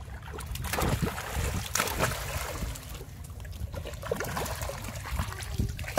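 Pond water splashing and sloshing as young monkeys swim and paddle about, a run of irregular splashes, heavier around one and two seconds in.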